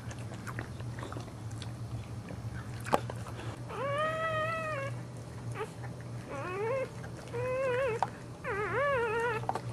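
A dog whining in four short, wavering cries over the second half, after a single sharp tap about three seconds in. A low steady hum runs underneath.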